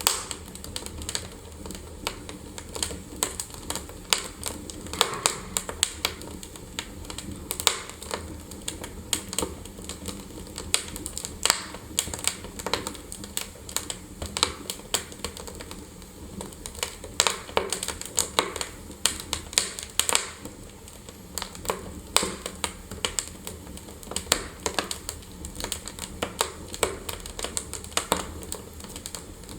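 Wood fire in a fireplace crackling: irregular sharp pops and snaps over a steady low rush of the flames.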